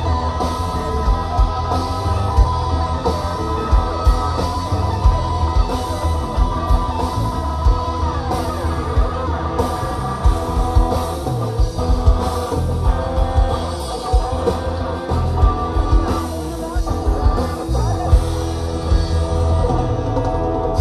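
Live rock band playing at full volume: two electric guitars, electric bass and a drum kit, with steady drum hits and a falling guitar pitch glide about eight seconds in.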